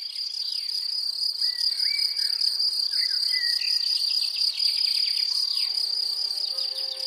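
A steady, high-pitched insect trill, like a cricket's, with a few short bird chirps in the first half. Violin music comes in about five seconds in.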